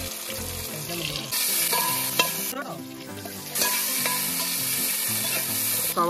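Sliced onions and chillies sizzling in hot oil in a wide metal pan. The sizzle swells loudly about a second in, drops back briefly near the middle, then returns.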